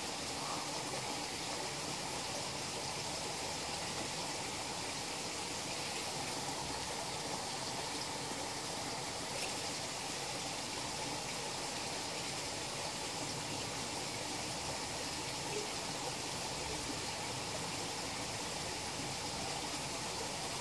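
Running water in a koi pond: a steady, even rush and trickle of flowing water.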